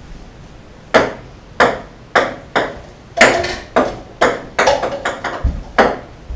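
Ping-pong ball bouncing on a wooden table: a string of sharp, light taps, about two a second, coming closer together about five seconds in.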